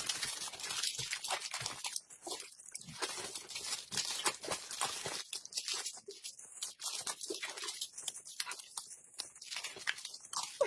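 Close-miked eating sounds: irregular crunching and wet mouth clicks as food is chewed from a spoon, with the crinkle of a plastic snack wrapper being peeled open.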